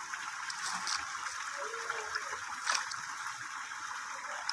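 Steady running water, with one short sharp knock a little past halfway.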